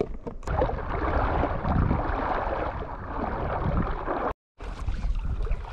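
Shallow seawater sloshing with wind on the microphone, a steady rushing noise. It cuts out completely for a moment about three-quarters of the way through, then resumes.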